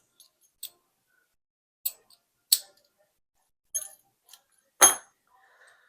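Sharp little metal clicks and clinks from handling a disc detainer padlock and its pick, about seven at irregular intervals, the loudest about five seconds in.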